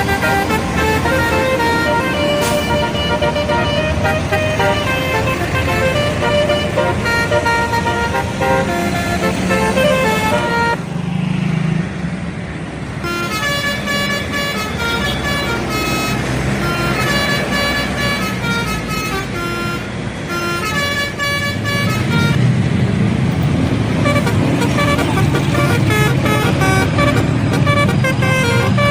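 Indonesian bus telolet horns playing stepped multi-note melodies over bus engine noise, with a short break in the horn tones about eleven seconds in.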